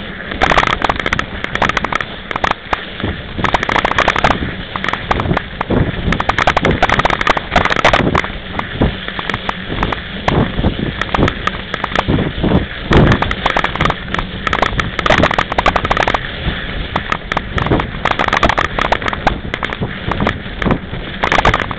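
Mountain bike riding over packed snow, heard through a bike-mounted action camera. A constant, dense crackling and knocking of jolts and rattles rides over steady rushing noise.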